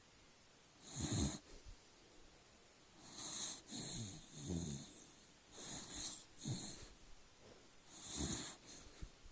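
Dog snoring in its sleep: a run of uneven snoring breaths, one every second or two, each a low rasp with a hiss on top.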